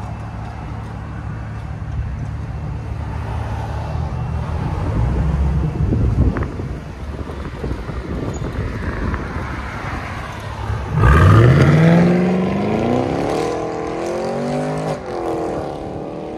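Chevy SS's 6.2-liter LS3 V8 with a fully straight-piped exhaust, rumbling at low speed as the car pulls away, then accelerating hard about eleven seconds in, its pitch climbing. There is a gear change near fifteen seconds, and the sound fades as the car drives off.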